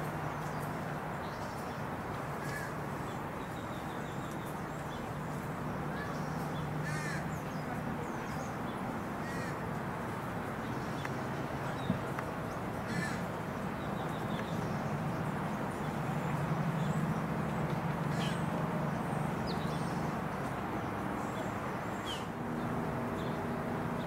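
Bald eagle giving short, high chirping calls every few seconds, over a steady low background hum.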